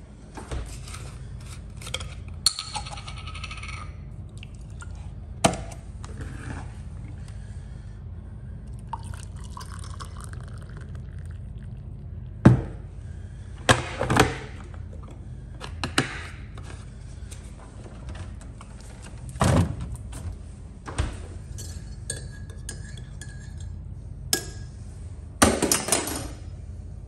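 Coffee being made by hand: a mug and spoon clinking, knocks of fridge and cupboard doors, and hot water poured from an electric kettle into a mug, over a steady low hum.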